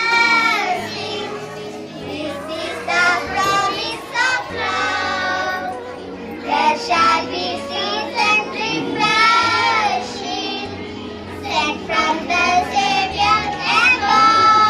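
Young schoolchildren singing a song, melodic phrases one after another with short breaks between them.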